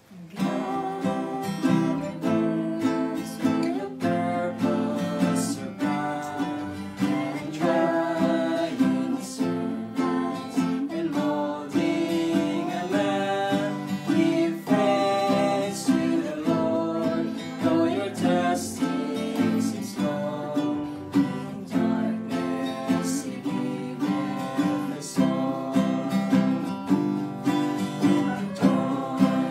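Acoustic guitar and ukulele played together, strummed in a steady rhythm.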